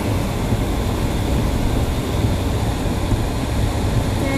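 Steady low rumble and hiss inside a vehicle's cabin, driving through heavy rain and running flood water: engine and road noise mixed with rain on the roof and windshield and tyres through the water.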